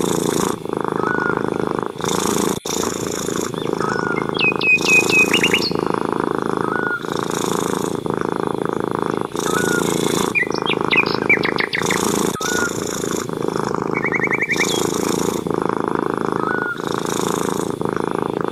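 Domestic cat purring steadily in long cycles, with a brief break about every two and a half seconds. Small birds chirp and trill behind it, with two quick runs of high trilled notes.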